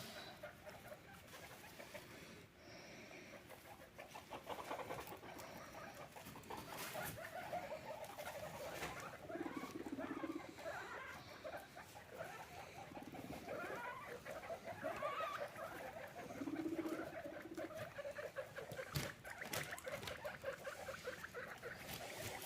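Guinea pigs making a continuous fast, soft chattering and squeaking, with a couple of lower, longer notes.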